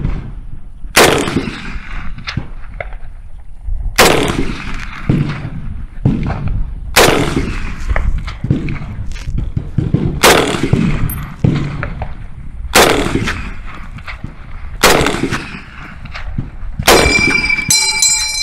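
M1 Garand semi-automatic .30-06 rifle firing seven shots, about two to three seconds apart, each a sharp crack with an echo trailing after it. Just after the last shot a high metallic ping rings on, typical of the Garand ejecting its empty en-bloc clip.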